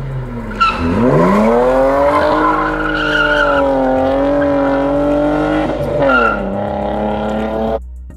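BMW saloon's engine revving hard as it drifts round a hairpin, the pitch climbing steeply about half a second in and held high with a short dip near the end, with tyre squeal over it. The sound cuts off abruptly just before the end.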